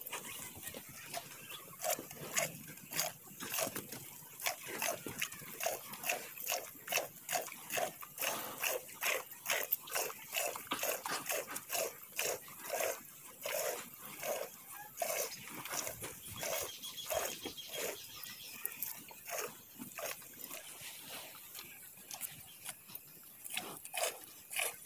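Cow being milked by hand: milk squirts into a pail in a steady rhythm of short hissing strokes, about two to three a second.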